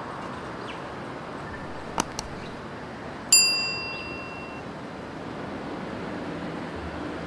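Subscribe-button sound effect: two quick mouse clicks, then a bright notification-bell ding that rings out for about a second, over a steady hum of city traffic.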